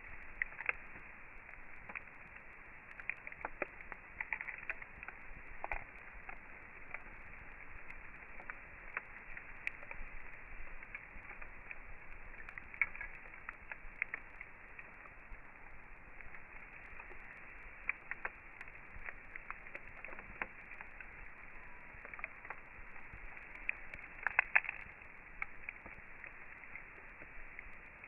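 Campfire crackling: wood burning with a steady low hiss and irregular sharp pops and snaps, a quick run of the loudest pops near the end.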